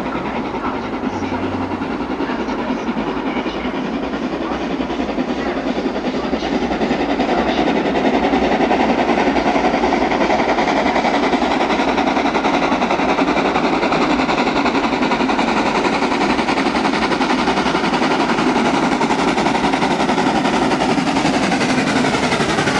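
Southern Railway N15 'King Arthur' class steam locomotive 30777 Sir Lamiel approaching at speed and working hard up a gradient, a good thrash. Its exhaust and train noise grow louder over the first several seconds and then hold steady as it draws close.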